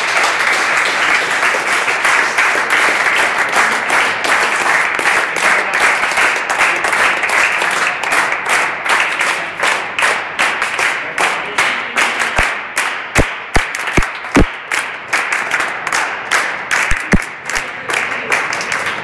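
A group of people applauding, a dense run of clapping that thins to separate claps in the second half. Several short low thuds sound among the claps around the middle and once more later.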